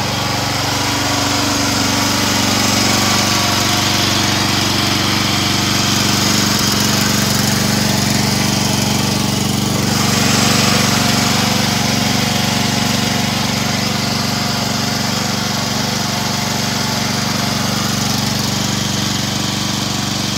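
Small Briggs & Stratton gasoline engine of a compact mini excavator, running steadily without revving.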